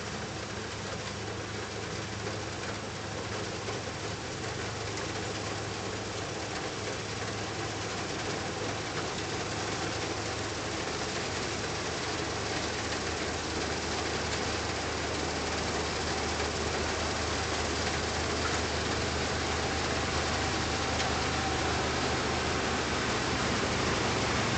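New Holland TX36 combine harvester threshing wheat, its engine and threshing machinery running steadily and growing gradually louder as it comes closer.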